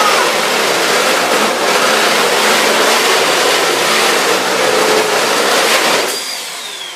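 Vacuum cleaner running loudly, then switched off about six seconds in, its motor whine falling steadily in pitch as it spins down.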